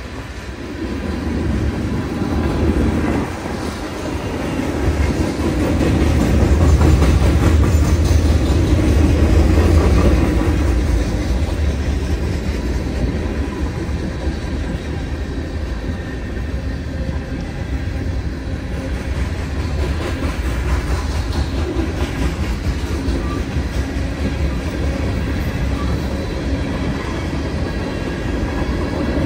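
Freight train passing on the rails: a heavy low rumble, loudest about a third of the way in, then the steady rolling of the cars with wheels clicking over the rail joints.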